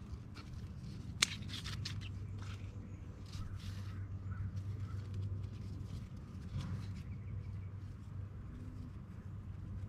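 Outdoor garden ambience: a steady low hum, a sharp click about a second in followed by a few lighter ticks, and faint bird calls.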